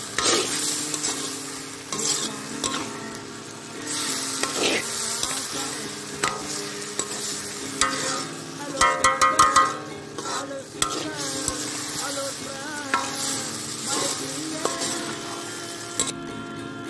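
Onions and tomatoes sizzling as they fry in a wok (kadai), with a metal ladle scraping and clanking against the pan as the masala is stirred. The scraping is loudest about nine seconds in.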